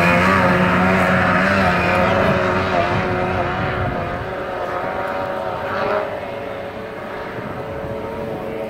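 Racing outboard motor running at high speed on a small racing boat, a high-pitched, slightly wavering engine note that fades steadily as the boat speeds away.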